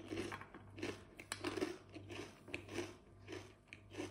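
Close-up crunchy chewing of a mouthful of a crisp snack, about two crunches a second.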